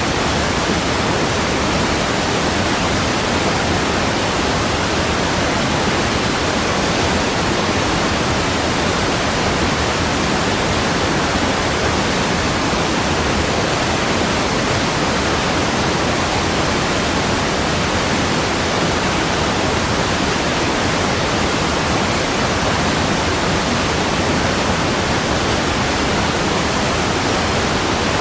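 Steady, unbroken rushing of water, like a waterfall, even across high and low pitches with no change.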